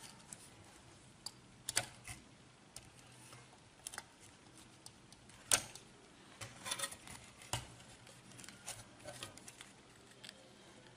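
Faint, scattered clicks and taps of hands handling a circuit board and soldering tools, with the sharpest tap about five and a half seconds in.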